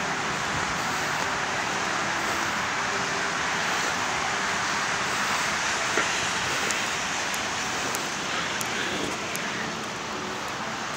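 Steady rush of highway traffic, an even roar with no single vehicle standing out.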